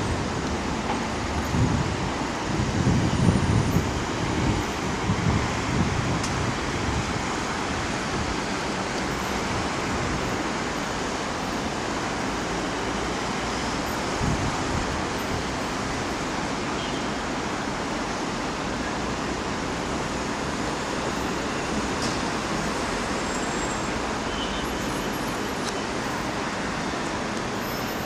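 Steady road traffic on a busy city street, cars and taxis running past, with a heavier low rumble from a passing vehicle a few seconds in.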